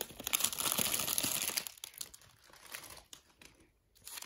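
Foil trading-card pack wrappers crinkling as they are handled. The crinkling is densest for about the first two seconds, then thins to faint rustles and dies away near the end.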